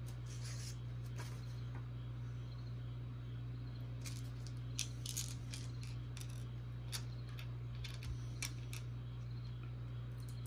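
Small robot-kit screws and risers clicking lightly as they are picked up and handled on a tabletop: a scattering of short ticks, most of them in the middle of the stretch, over a steady low hum.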